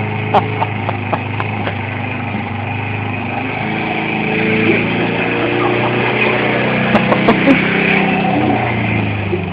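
Petrol lawn mower engine running steadily; its note gets louder and shifts in pitch through the middle. A few sharp clicks come about seven seconds in.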